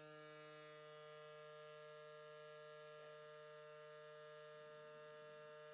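Renfert Silent powerCAM EC dental extractor running its filter vibration-cleaning cycle at switch-on: a faint, steady electric hum with several even tones that begins to wind down in pitch right at the end.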